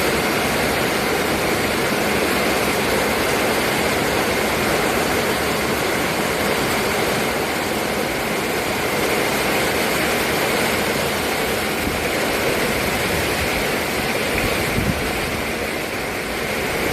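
Storm wind rushing steadily, with gusts buffeting the microphone.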